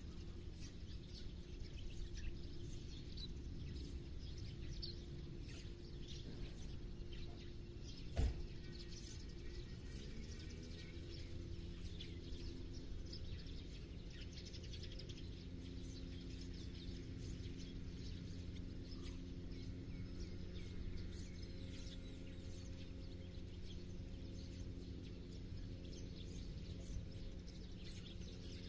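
Small birds chirping and calling repeatedly over a steady low hum. A single sharp knock comes about eight seconds in.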